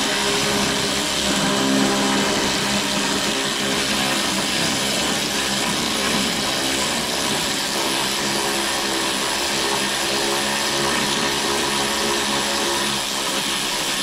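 Cordless electric ratchet motor whirring steadily under load as it drives a 1/4-20 bolt that cuts its own threads through a hole in the mower's sheet metal.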